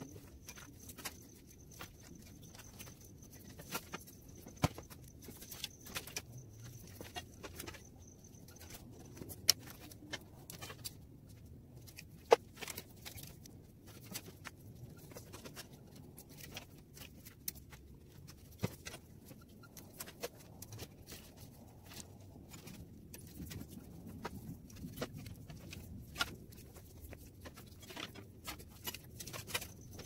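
Insulated wire being pulled by hand through the core of a microwave oven transformer and wound into a new secondary coil: irregular light clicks, scrapes and rustles, with a few sharper taps.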